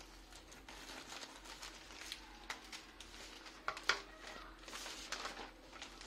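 Clear plastic bag crinkling and rustling as hands cut it open and pull out the paper manuals inside, with irregular sharp crackles, loudest about four seconds in.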